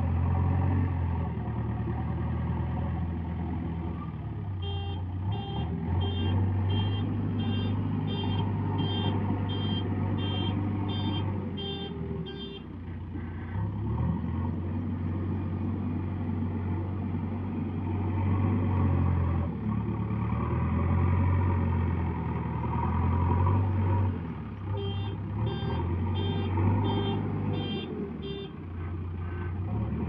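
JCB 3DX backhoe loader's diesel engine running under changing load as it works the loader bucket. Its reversing alarm beeps about one and a half times a second in two spells, first for about eight seconds, then for a few seconds near the end.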